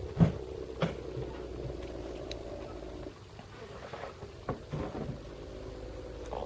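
Chainsaw idling steadily, with several sharp knocks and clunks over it, the loudest just after it begins.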